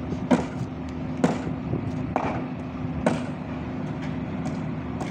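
Boat engine running with a steady low drone, with four sharp knocks, roughly one a second, over the first three seconds.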